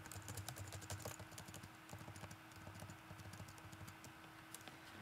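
Faint typing on a computer keyboard: quick runs of light key clicks, with a steady low hum underneath.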